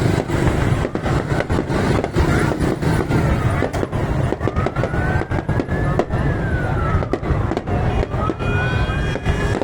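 Fireworks popping and crackling over a steady crowd-and-traffic din. A siren wails slowly up and down, rising about four and a half seconds in, falling, then rising again near the end.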